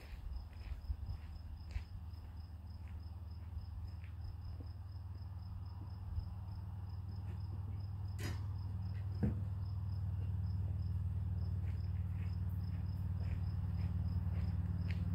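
An insect chirping in a fast, even, high-pitched pulse over a low engine hum that slowly grows louder. Two sharp knocks about a second apart come near the middle.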